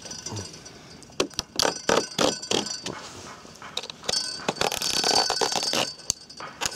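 Utility knife scoring a polycarbonate twin-wall sheet along a spirit level. First a run of light clicks and taps, then a longer scraping stroke of the blade along the plastic about four seconds in.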